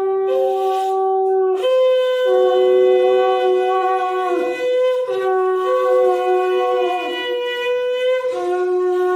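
Conch shells (shankha) blown in long, steady blasts at a Bengali wedding rite. Two conches at slightly different pitches overlap and take turns, each blast lasting about one to three seconds.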